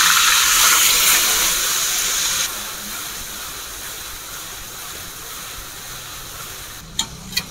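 Ground masala paste sizzling loudly as it hits hot mustard oil in a kadhai and is stirred with a metal spatula. About two and a half seconds in, the hiss drops abruptly to a softer, steady sizzle. A few light clicks come near the end.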